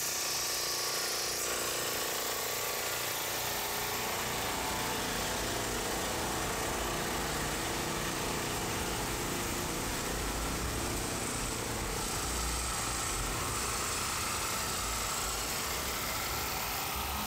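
Steady running hum of parked food trucks' motors. Low rumbles come and go in the second half.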